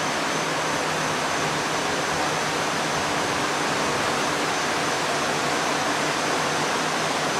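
A storm-swollen creek in flood, its brown water rushing over a road and spilling past a metal guardrail. The sound is a steady, unbroken rush of water.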